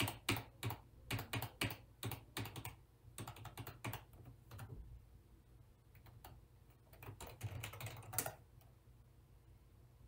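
Computer keyboard keys being pressed: a quick, even run of taps, about three a second, for the first few seconds, then sparser presses with a short flurry about eight seconds in before they stop. These are keystrokes to get into and move around a PC's BIOS setup.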